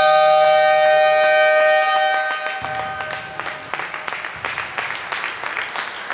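Basketball scoreboard horn blaring a steady two-pitch tone, cutting off about two seconds in and dying away, followed by scattered clapping from the crowd.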